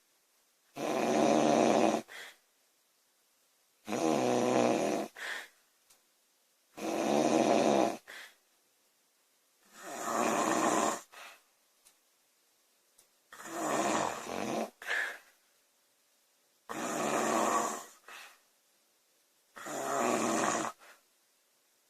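A woman snoring loudly in her sleep: seven regular snores about three seconds apart, each lasting just over a second and followed by a short, faint puff of breath.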